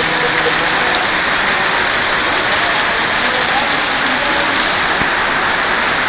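Heavy rain falling steadily, an even hiss of downpour on surfaces.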